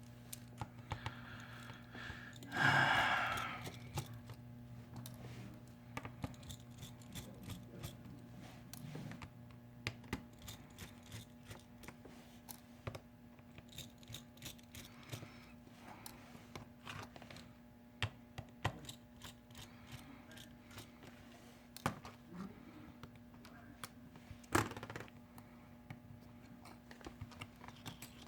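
Scattered small clicks, taps and scrapes of hand tools on a flip phone's plastic housing and screws as it is pried open, with one louder scrape about three seconds in. A steady low electrical hum runs underneath.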